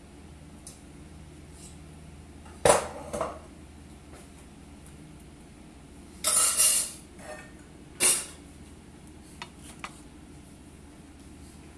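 Kitchen cookware and utensils clanking: a sharp clank about two and a half seconds in with a smaller one just after, a longer rattle around six seconds, another clank about eight seconds in, and a couple of light ticks near the end.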